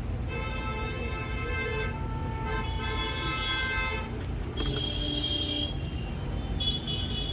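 Steady road-traffic rumble with horns honking in three stretches of a second or more each.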